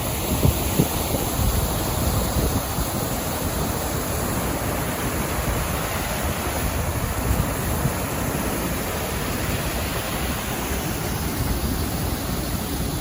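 Wind blowing across an outdoor microphone: a steady rushing noise with irregular low buffeting thumps from gusts.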